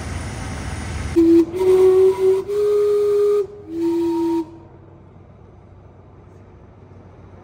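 Gastown Steam Clock's steam whistles sounding a short chime phrase of several clear notes lasting about three seconds, the last note lower, then stopping.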